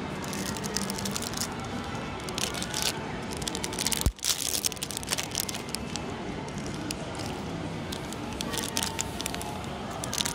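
Thin clear plastic bags crinkling and crackling as small wrapped toy figures are handled and picked up, with one sharp knock about four seconds in.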